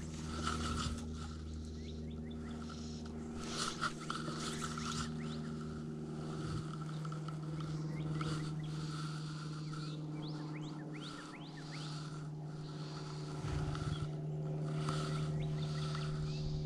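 Animals calling around a pond: a call repeated every half second to second and many short rising chirps, over a steady low hum.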